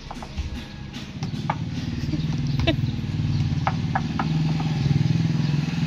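A motorcycle engine running, its low pulsing rumble growing steadily louder from about a second in. A few short, high chirps sound over it.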